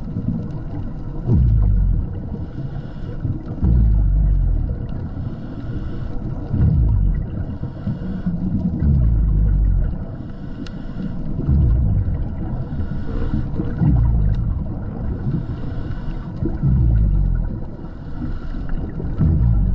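Scuba diver breathing through a regulator underwater: a hiss alternating with a low rumble of exhaled bubbles, about one breath every two and a half seconds.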